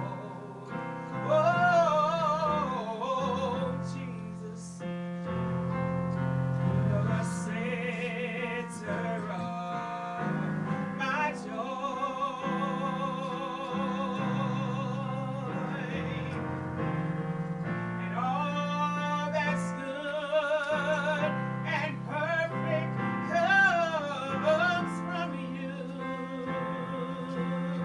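A solo singer with strong vibrato, accompanied by piano.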